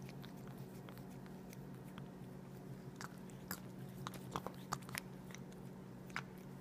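Persian cat licking ice cream off a plastic spoon: small, irregular wet tongue clicks and smacks, bunched together about three to five seconds in, over a steady low hum.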